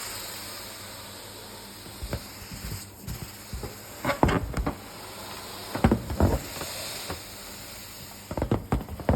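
Air hissing softly out of a small bitten hole in a tied rubber balloon as it slowly deflates, the hiss fading gradually. Brief rustles of fingers handling the balloon come a few times.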